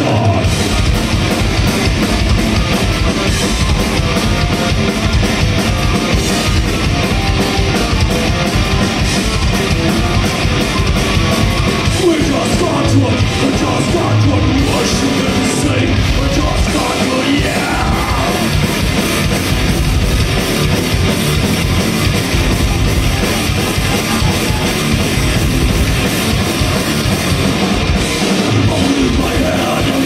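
Heavy metal band playing live at full volume: distorted electric guitars, bass and a pounding drum kit, with yelled vocals over them, heard from the crowd.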